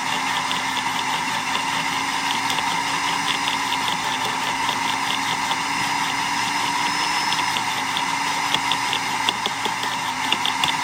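Sun Joe CJ603E 15-amp electric wood chipper running with a steady motor sound much like a shop vac, with rapid irregular clicking and rattling as sticks are fed in and cut into chunks, busiest near the start and the end.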